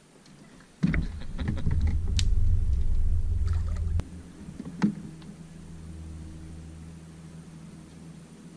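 A small boat's motor running. It starts suddenly as a loud low rumble with clicks and knocks, then drops about halfway through to a quieter steady hum. There is one sharp knock a little later.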